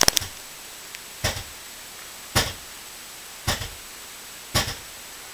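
Five evenly spaced sharp knocks or ticks, about one a second, over a faint hiss.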